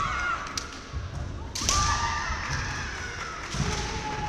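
Kendo bout: bamboo shinai meet in a sharp clack about a second and a half in, with dull thuds from the fighters' feet on the wooden floor. Long held kiai shouts come after the clack and again near the end.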